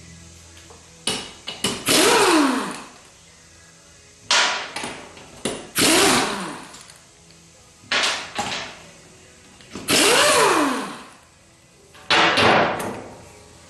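Hand socket wrench working a tight nut off a body-mount stud: a few short clicks, then a rough metal screech of about a second with a sweeping pitch as the nut is forced round. This happens three times, about four seconds apart.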